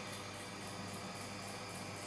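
Bajaj Regal Underlight four-blade ceiling fan running steadily: a constant motor hum under a faint hiss that pulses a few times a second.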